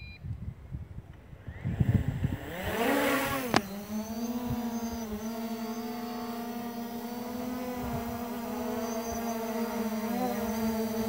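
Holy Stone HS700 quadcopter's motors and propellers spinning up for takeoff, the pitch rising over the first few seconds, then a steady buzzing hum as it hovers. A sharp click comes about three and a half seconds in, and low uneven rumbling runs under the start.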